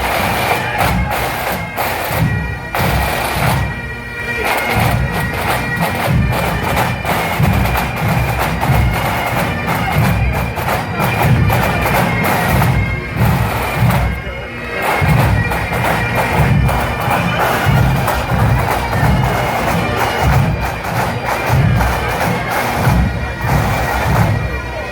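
Massed pipes and drums, hundreds of bagpipes playing together: a melody over steady drones, with a regular drumbeat underneath.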